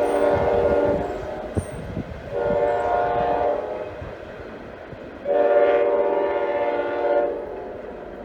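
Locomotive air horn blowing three blasts as a train approaches a grade crossing: the first ends about a second in, a shorter one follows, and a long one comes near the end, over the low rumble of the train.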